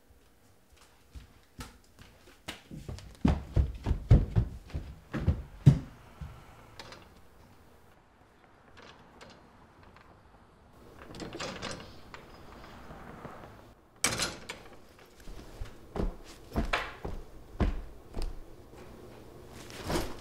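Footsteps and door thumps: a run of heavy thuds in the first six seconds, a quiet spell, then a sharp bang about fourteen seconds in followed by a string of knocks and thumps.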